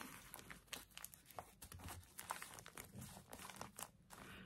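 Faint paper rustling and crinkling as hands press and smooth a glued tea-bag piece onto a journal page, with small irregular ticks.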